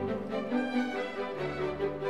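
Background instrumental music with held, string-like notes that change every half second or so.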